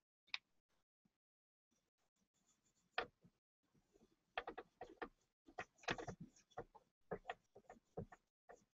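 Faint, irregular scratching and tapping of a small polishing tool rubbed by hand over the metal lines of a kintsugi-repaired lacquered bowl: a single click about three seconds in, then a run of quick short strokes from about four and a half seconds on.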